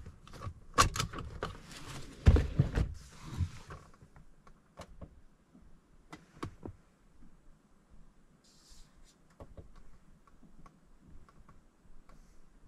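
Knocks, clicks and thumps inside a parked car's cabin, packed into the first few seconds with the loudest thump about two seconds in, then only faint scattered ticks.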